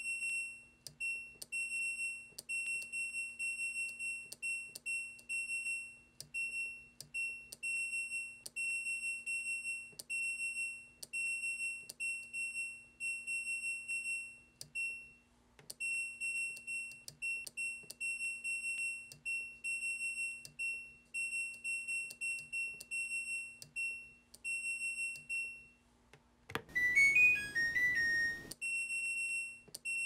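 Washing machine's electronic beeper sounding a long string of short and longer beeps, all at one high pitch, in a halting rhythm like syllables of speech, over a faint steady low hum. Near the end a quick falling run of tones plays like a little jingle.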